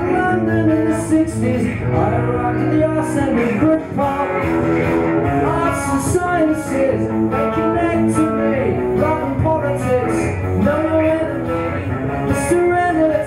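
Live rock-and-roll song: a man singing into a microphone while playing a Telecaster-style electric guitar.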